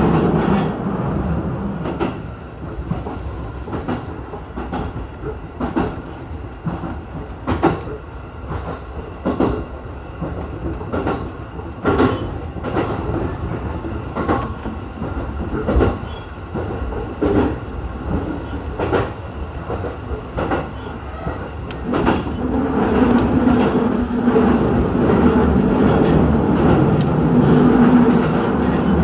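Electric commuter train running along the track, heard from inside the front car. The wheels give sharp clicks over rail joints at irregular intervals, roughly once a second. A steady motor hum is there at the start, fades, and comes back about two-thirds of the way in.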